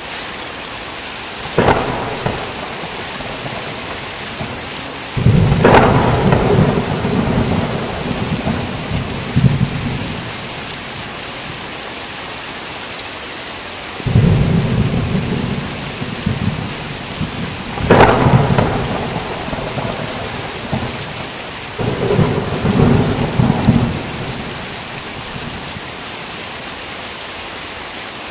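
Steady heavy rain with repeated thunder: a short crack about two seconds in, then four loud claps, each followed by a rumble lasting a few seconds.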